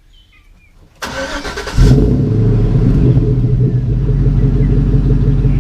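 A Chevrolet Silverado's 4.8-litre V8 being started: the starter cranks briefly about a second in, then the engine catches and runs steadily.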